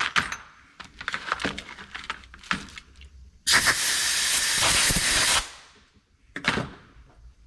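Small tool-handling clicks and knocks, then a steady burst of pressurised air hissing for about two seconds that cuts off sharply, and one more knock near the end. Right after a small hole is tapped, this is typical of blowing the cutting chips out of the fresh threads.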